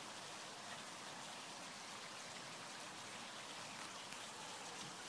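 Faint steady hiss of outdoor background noise, with scattered tiny ticks, like light rain.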